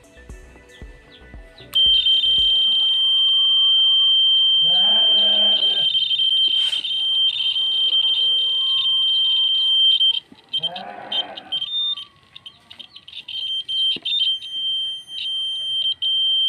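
A 3–24 V DC piezo buzzer sounding a steady high-pitched tone, switched on about two seconds in; about ten seconds in it breaks off into short bursts, then sounds steadily again near the end. The SW-420 vibration sensor keeps triggering it although the board is still: a false signal that the maker puts down to the sensor lying flat.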